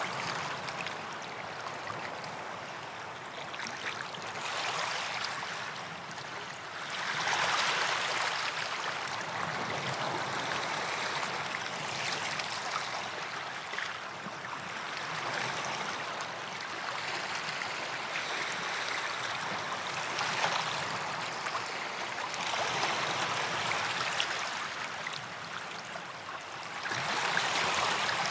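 Small sea waves washing onto a sandy beach, the hiss of surf swelling and fading every few seconds.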